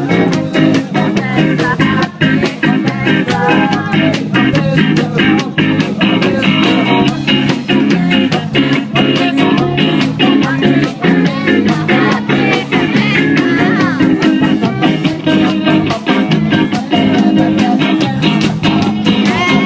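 Live band music with guitar over a fast, steady drum beat.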